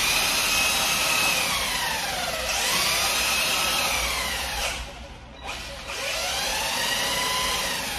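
Electric RC truck's Reedy 3300 motor and drivetrain whining as the throttle is worked with the wheels spinning in the air. The pitch falls and climbs again, cuts out just before five seconds in, then winds up and back down once more.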